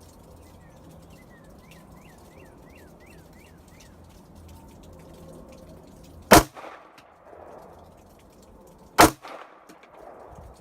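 Two shots from a Glock 43 9mm subcompact pistol, about three seconds apart, each a sharp crack followed by a brief echo.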